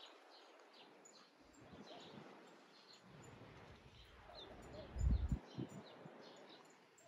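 Small birds chirping repeatedly in short, high calls. About five seconds in there is a brief low thump on the microphone.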